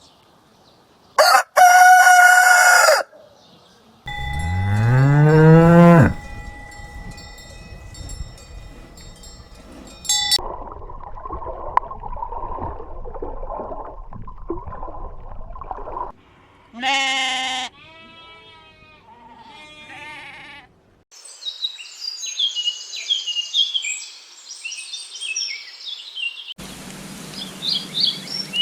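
A string of separate farm animal calls, cut one after another: a loud short call about a second in, then a cow mooing, its pitch rising over about two seconds. More short animal calls follow a little past the middle, and high twittering of small birds fills the last part.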